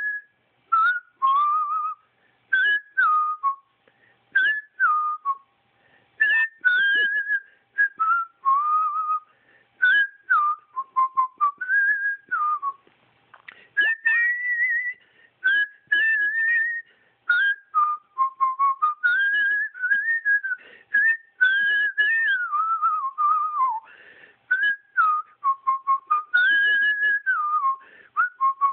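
A tune whistled as a single pure tone in short phrases of stepping and sliding notes, with small clicks at the start of many notes.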